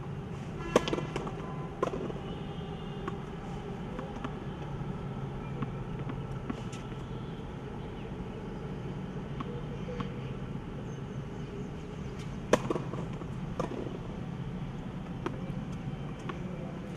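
Tennis serves: a sharp pop of the racket striking the ball about a second in and again about twelve seconds in, each followed roughly a second later by a softer pop. A steady low hum sits underneath.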